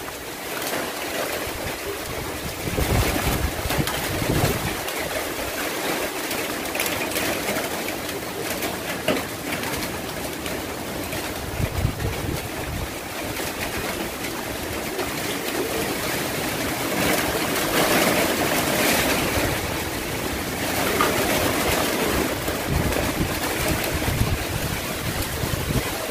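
Typhoon wind gusting with rain, in a constant rushing noise that swells and eases, strongest about 18 seconds in. Wind hits the microphone now and then with low rumbling buffets.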